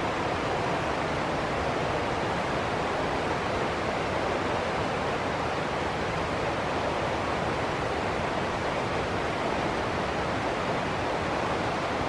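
Shallow river rushing steadily over and between rocks in small white-water rapids, an even, unbroken noise.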